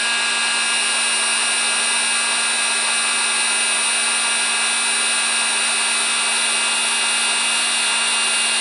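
Electric heat gun running steadily, its fan hum and rushing air unbroken, as it blows hot air to shrink adhesive-lined heat shrink tubing over a crimped butt splice.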